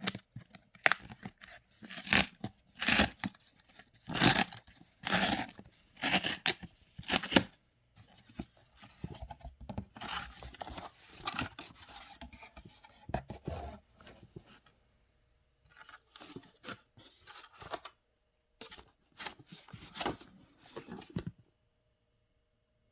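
Shipping packaging being torn and cut open and handled: a run of sharp ripping strokes, then softer rustling and crinkling of paper, with a few more tears near the end.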